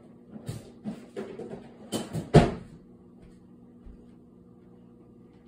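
A quick run of knocks and clatters from a kitchen, the loudest about two and a half seconds in, like a cupboard or door being opened and shut. A steady low hum runs underneath.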